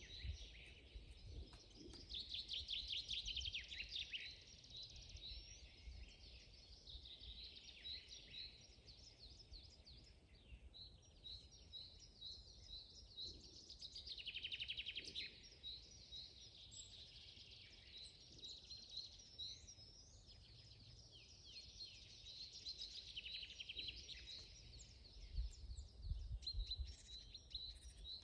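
Several songbirds singing in a forest: one bird repeats a short high chirp about three times a second throughout, while others add fast trills a few seconds in and again about halfway through. A faint low rumble sits underneath and grows stronger near the end.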